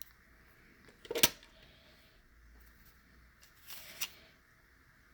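Handling noises from a 1/64 diecast toy car being picked up and moved: a sharp click about a second in, and a brief rustle ending in a click just before four seconds.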